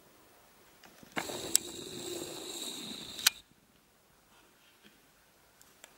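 Small camera zoom motor whirring for about two seconds as the lens zooms out, a steady high whine over a low hum, with a click as it starts and a sharp click as it stops.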